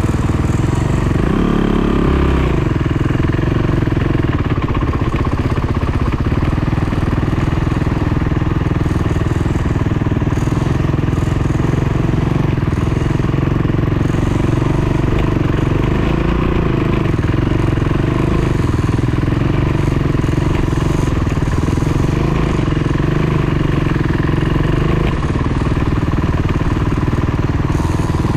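Dirt bike engine running continuously while riding, the revs shifting up and down a little, with a short rise about a second or two in.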